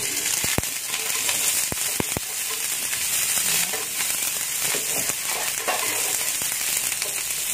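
Sliced onion frying in hot oil in a frying pan, a steady sizzle, while a spatula stirs it. A few light knocks of the spatula against the pan come in the first couple of seconds.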